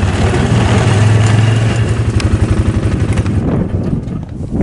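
Off-road vehicle engine running steadily while driving, with a pulsing low drone. About three seconds in it drops away to a quieter outdoor background.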